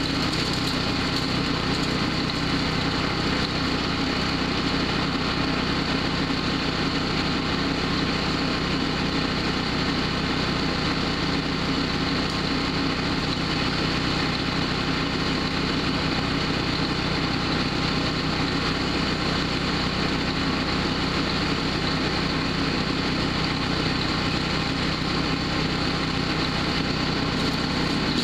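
Powerhorse wood chipper-shredder's small gasoline engine running steadily, a constant engine drone with no pauses.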